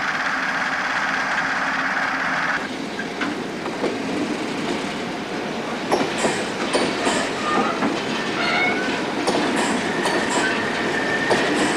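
Railway wagons moving in a yard: a BR brake van's wheels running along the track, then scattered metallic clicks and clanks. A thin, steady high squeal comes in near the end.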